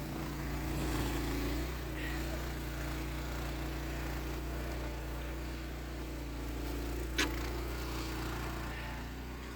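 An engine running steadily with an even hum, and a single sharp click about seven seconds in.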